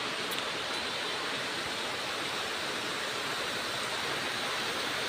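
Steady rain as a continuous, even hiss, picked up by a CCTV camera's built-in microphone.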